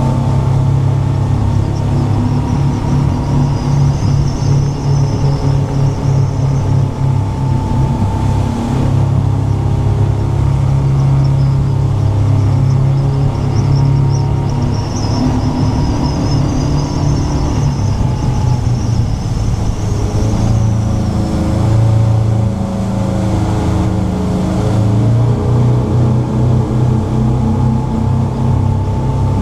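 Twin MerCruiser 8.2 Mag V8 sterndrive engines of a Formula 330 CBR running under way at speed, a steady deep engine note whose pitch dips and shifts about two-thirds of the way through as the boat is put through its handling.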